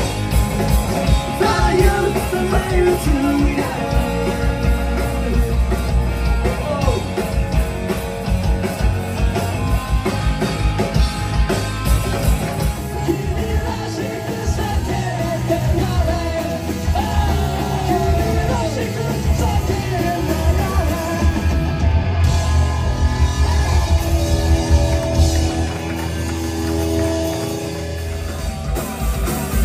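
Punk rock band playing live: distorted electric guitars, drum kit and sung, partly shouted vocals, loud and continuous.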